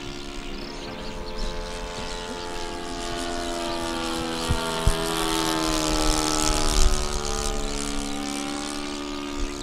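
Radio-controlled scale model of a Nakajima Ki-84 Hayate fighter flying past overhead, its engine and propeller droning steadily. The pitch falls as it passes, loudest a little after the middle.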